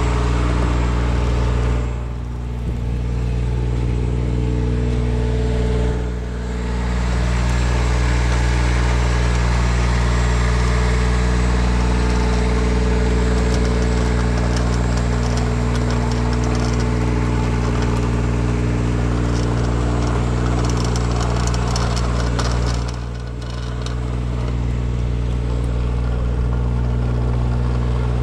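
An engine running steadily, a constant low hum with hiss over it, easing off briefly three times.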